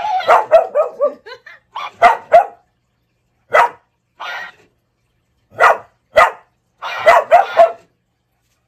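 Black curly-coated dog barking in short clusters of two or three barks, with brief silent pauses between them.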